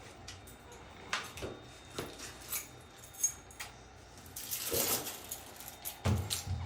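Scattered light clicks and knocks, with a brief rustle about four and a half seconds in and a low thump about six seconds in.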